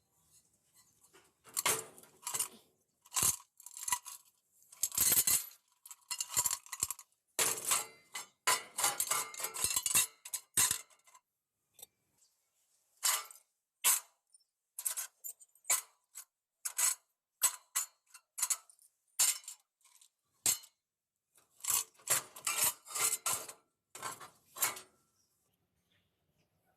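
Metal pieces and tools clinking and clattering against each other in irregular bursts of sharp knocks, as steel parts are handled. There are clusters of rapid clatter in the first half and near the end, and single clinks in between.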